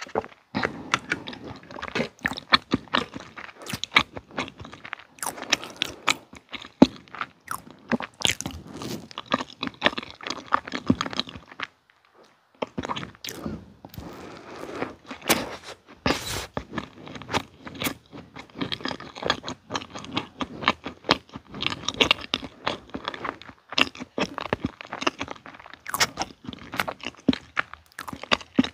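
Chewing of soft red velvet cake with cream filling: many quick mouth clicks and smacks, with a brief pause about twelve seconds in.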